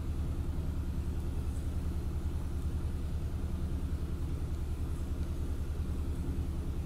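Steady low-pitched hum with a rumble, unchanging throughout.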